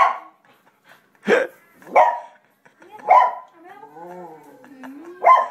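A dog barking insistently in single sharp barks, five in all about a second apart, with a quieter drawn-out wavering whine between the last two. It is impatient demand barking for a walk, with the tail wagging throughout.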